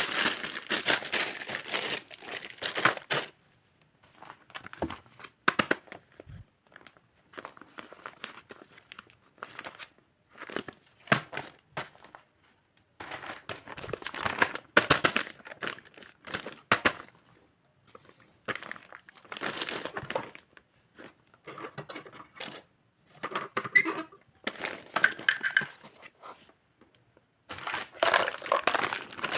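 Plastic packaging crinkling and rustling in irregular bursts as toy kitchen pieces are unwrapped, with short pauses between handlings.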